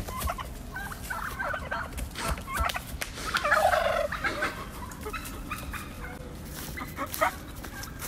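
Tom turkey gobbling repeatedly in short bursts, the loudest and longest gobble about three and a half seconds in.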